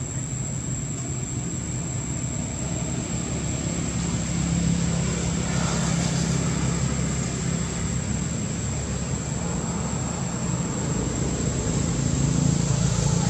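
Distant motor engine droning steadily, growing louder about four seconds in and again near the end, with a thin, steady high-pitched tone above it.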